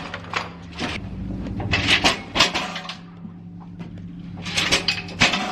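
Clunks and knocks of hard objects being handled and set down, in two groups, over a steady low hum.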